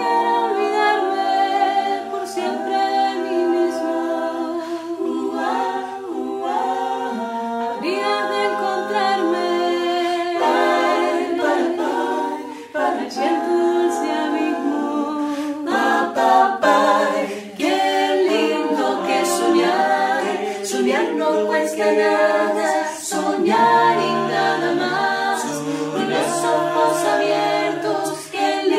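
Mixed a cappella vocal group of men and women singing in close harmony, several voice parts sounding together without instruments, a lower part joining near the end.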